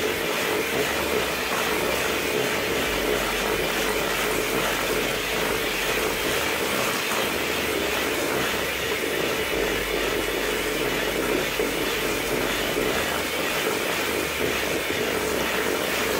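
Hamilton Beach electric mixer, used handheld, running steadily at one pitch as its beaters work an egg into creamed butter and sugar.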